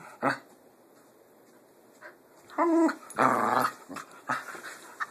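Pit bulls vocalizing in play: a short pitched cry about two and a half seconds in, followed at once by a louder, harsh growl, then a few short quieter sounds.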